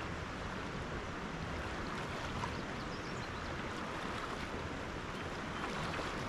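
Steady rush of river water flowing over a stony bed.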